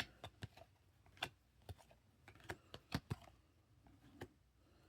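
Chrome trading cards being handled and flipped through by hand: light, irregular clicks and taps, about a dozen over a few seconds.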